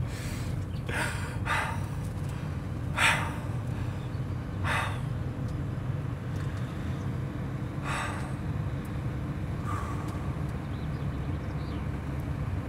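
Steady low rumble of a moving vehicle, with a few brief soft swishes over it.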